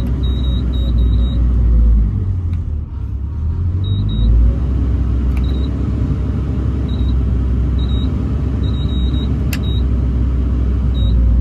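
Case CX240B excavator's diesel engine running, heard from inside the cab. Its low drone dips and shifts in pitch about two to four and a half seconds in, as the throttle control is worked.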